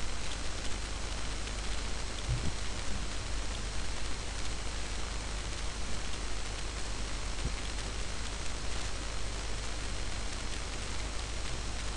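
Steady, even hiss of recording background noise with a low hum underneath and a few faint knocks, the sound of a desk microphone left open with nothing happening.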